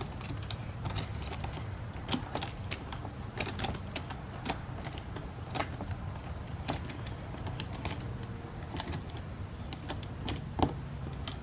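Irregular metallic clicks and clinks of small hardware and hand tools as a screw is forced through a quick-release bumper fastener, over a low steady hum.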